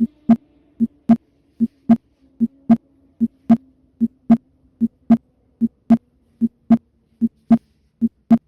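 Heart sounds auscultated at the accessory aortic focus (Erb's point): a regular lub-dub at about 75 beats a minute, each pair a short first sound and, a third of a second later, a louder second sound. A faint steady hum lies underneath.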